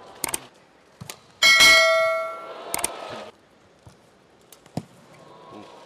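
Badminton rackets striking a shuttlecock in a rally, as sharp single hits spaced a second or more apart. About a second and a half in comes a loud bell-like ring, the loudest sound, that fades out over about a second and a half.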